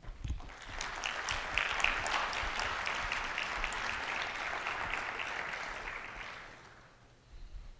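Audience applauding: many hands clapping, building up within the first second, holding steady, then dying away around six to seven seconds in.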